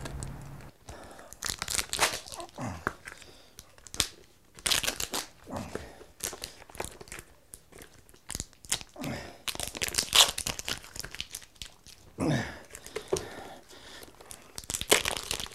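Adhesive decals being picked and peeled by hand off a plastic football helmet: irregular tearing and crinkling sounds, a dozen or so short ones spread through.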